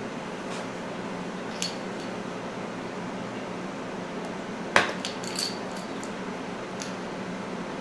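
Small plastic dominoes clicking and clacking as they are handled and stacked: a few light clicks, a sharper knock about halfway through, then a quick cluster of clicks. A steady fan-like hum runs underneath.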